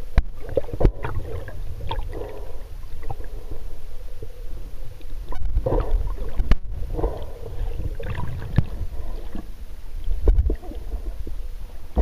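Water sloshing and gurgling around an underwater camera, with a low rumble and scattered sharp knocks and clicks.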